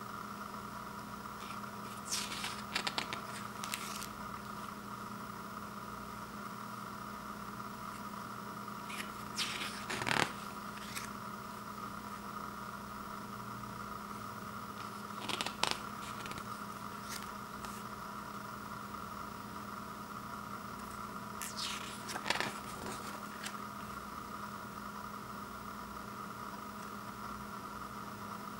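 Pages of a paper CD booklet being turned by hand: four short rustles of paper several seconds apart, over a steady background hum.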